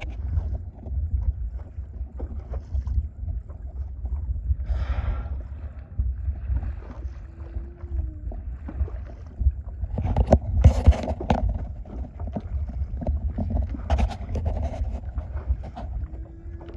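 Water lapping and slapping against a small boat's hull, with wind rumbling on the microphone. About ten seconds in comes a louder, longer rushing burst.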